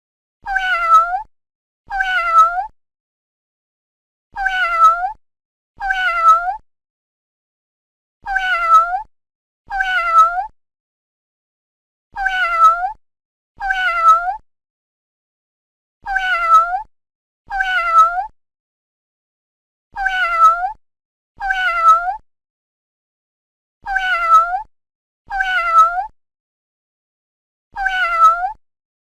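Kitten meowing: two short high meows a second and a half apart, each dipping and then rising at the end. The same pair repeats identically about every four seconds as a looped sound effect.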